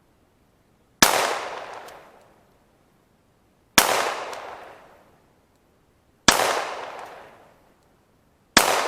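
Glock 19 9mm pistol fired four times at an unhurried pace, a shot about every two and a half seconds, the last near the end. Each shot is followed by about a second of fading echo.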